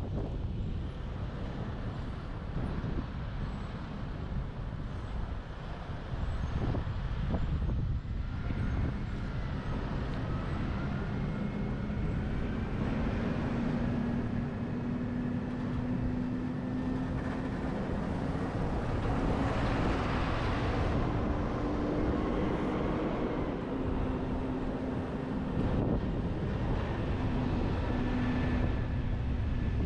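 A truck driving, heard from a camera mounted on its roof: steady rumbling road and wind noise, with a steady drone setting in about nine seconds in.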